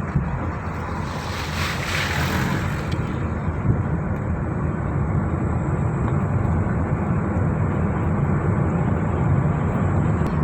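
Car being driven along a road: steady engine and tyre noise, with a brief rushing hiss about one to three seconds in.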